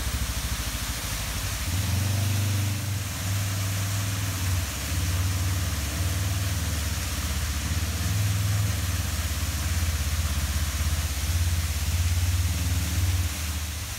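Polaris RZR side-by-side's engine running at low speed as it creeps through a shallow pool, its note swelling and easing, louder from about two seconds in. The steady hiss of a waterfall runs beneath it.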